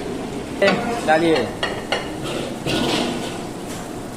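Metal utensils knocking against a large cooking pot, a few sharp clanks.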